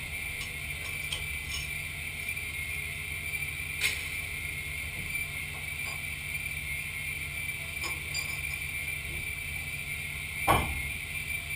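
Steel parts being handled in a machine vice: scattered light metallic clicks, a sharp knock about four seconds in and a louder clank near the end, over a steady machine hum.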